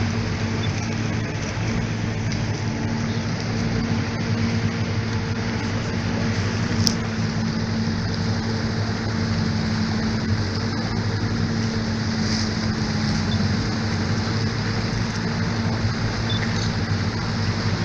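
Motorboat engine running steadily, a constant low hum under the rush of water and air. A single brief sharp click about seven seconds in.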